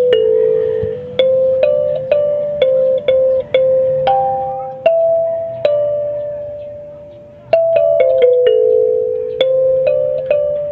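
Music: a slow melody of single bell-like struck notes. Each starts sharply and rings out as it fades, with a long held note in the middle.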